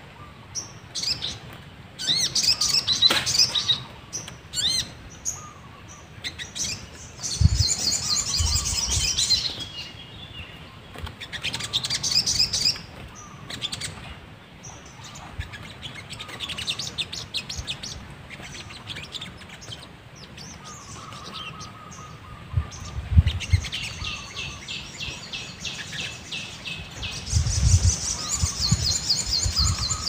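Sogon birds calling: repeated bursts of rapid, high trilling chirps, each a second or more long, with quieter chirps between. A few low thuds come underneath, near 7 s, 23 s and 28 s.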